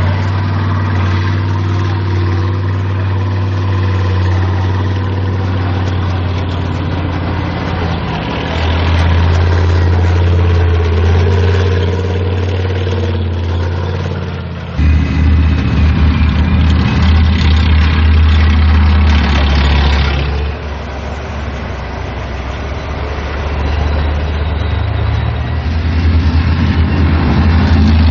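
Heavy tracked armoured vehicles driving on a dirt course, their big diesel engines running loud and steady. The sound changes abruptly about 15 seconds in, dips about 20 seconds in and swells again near the end as a Flakpanzer Gepard passes close.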